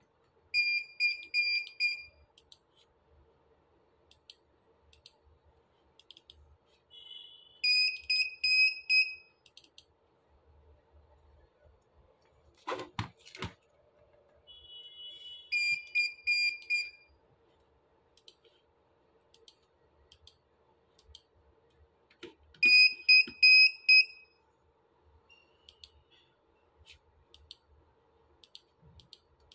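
Electronic buzzer on a Dahua network video recorder board beeping its alarm: high-pitched bursts of several quick beeps, repeating about every seven seconds, typical of the recorder's alert when no hard disk is installed. A single knock comes about thirteen seconds in.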